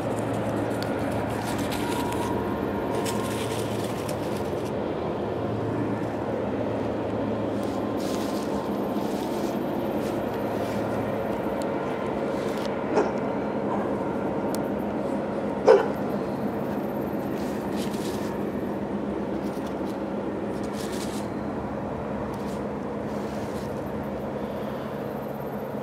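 A steady low hum with hiss, broken by a small click and, about sixteen seconds in, one brief sharp sound.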